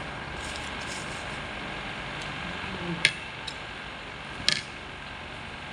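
White plastic spoon and fork clicking against the plate and plastic wrapping while picking at fish, a few sharp clicks in the second half, over a steady background noise.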